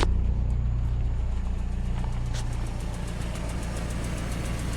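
1985 Nissan 720's Z24 2.4 L four-cylinder engine idling, its level gradually easing down. A faint, rapid, even ticking can be heard over it in the second half.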